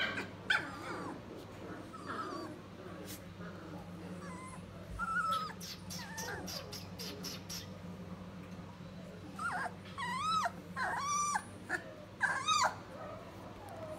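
Three-week-old standard poodle puppies whimpering and squeaking, with short scattered calls and then a run of high, arching whines near the end.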